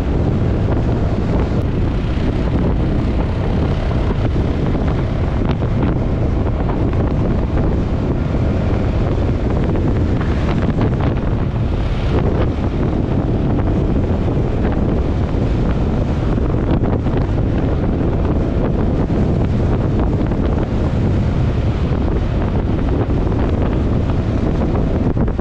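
Heavy wind noise on the microphone of a camera riding on a motor scooter at road speed, with the scooter's engine and tyre noise underneath. Steady throughout.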